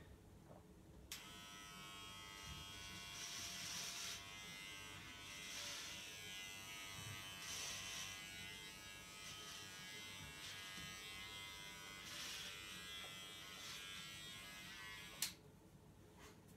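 Electric hair clippers buzzing while cutting hair. The buzz starts with a click about a second in, gets louder in brief swells every couple of seconds as the blades pass through the hair, and stops abruptly near the end.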